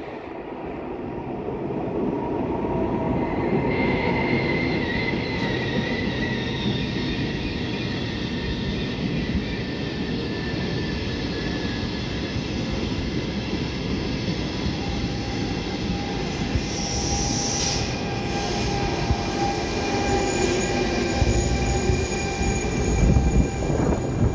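A train moving along the tracks with its wheels squealing on the rails: a steady rumble that builds over the first couple of seconds, with thin squealing tones over it. A short hiss comes about 17 seconds in.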